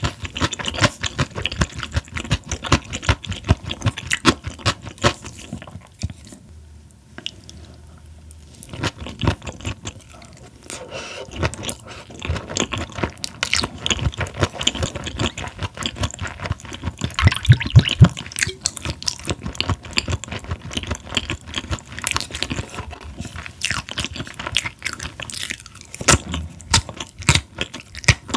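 Close-miked chewing of raw Chinese herring, with wet, crunchy bites and mouth clicks. The chewing eases off into a short lull about six seconds in, then picks up again.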